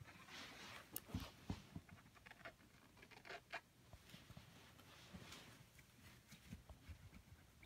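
Faint rustling with scattered soft clicks and taps, the clearest few coming about a second in and again around three and a half seconds in.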